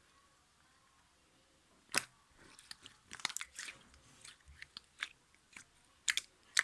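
Sticky, wet clicks and pops of a soothing-gel mixture being squeezed and worked by hand. They come irregularly, several a second, starting about two seconds in.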